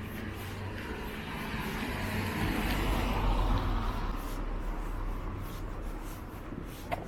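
A car passing by on a road, its tyre and engine noise swelling to a peak about three seconds in and then fading away.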